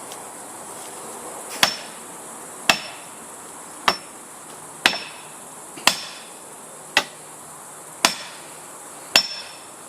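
Felling wedge being driven into the back cut of a tree with eight heavy blows, about one a second, several with a short metallic ring. The blows are opening up the cut to tip the tree.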